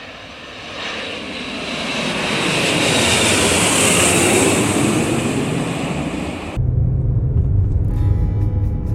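An airplane passing, its engine and rushing noise swelling to a peak and then fading. About two-thirds of the way in, it cuts off abruptly and instrumental music with a strong bass and a steady beat begins.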